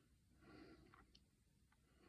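Near silence: faint, slow breathing close to the microphone, with a couple of tiny ticks in the second half.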